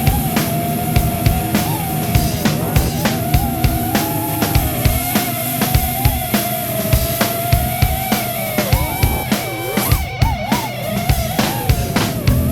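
Rock music with a steady drum-kit beat under a held, wavering melody line, with no singing.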